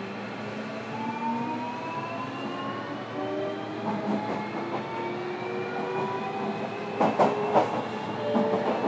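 Running sound inside a JR Kyushu 305 series EMU motor car, with a Toshiba inverter and permanent-magnet synchronous traction motors. The motor whine is a set of tones rising steadily in pitch as the train gathers speed. A quick run of wheel clacks over the rail joints comes about seven seconds in, with more near the end.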